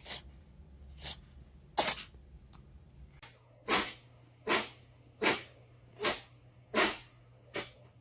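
A cat sneezing again and again: a few scattered sneezes, then a run of six sneezes in a steady rhythm, one about every 0.8 seconds.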